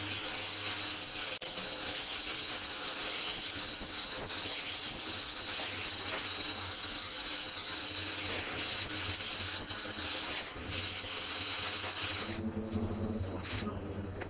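Gas welding torch flame hissing steadily while aluminium filler rod is melted into a crankcase. The hiss thins near the end.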